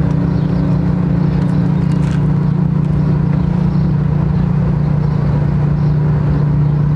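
A steady, unchanging low mechanical drone, like a motor or engine running continuously.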